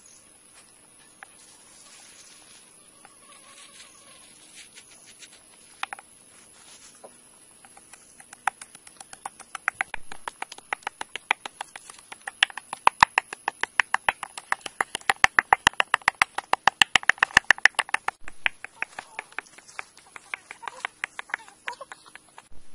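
A wooden stick pestle pounding chilies and garlic in a coconut-shell bowl: rapid, regular knocks, several a second, starting about a third of the way in, loudest in the middle and easing off near the end.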